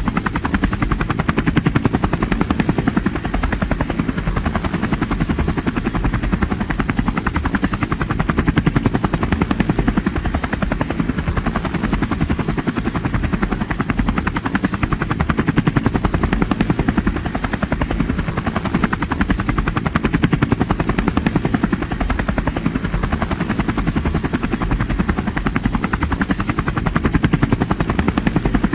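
Helicopter rotor running steadily, a fast continuous chop of the blades over engine noise, swelling and easing slightly every few seconds.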